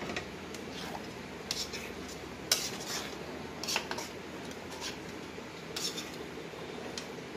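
A spoon clinking and scraping against a stainless steel frying pan as thick tomato spaghetti sauce is stirred, about one clink a second over a steady background hiss.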